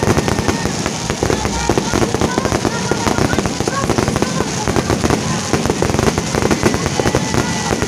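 Fireworks going off in a dense, continuous crackle of rapid pops and bangs.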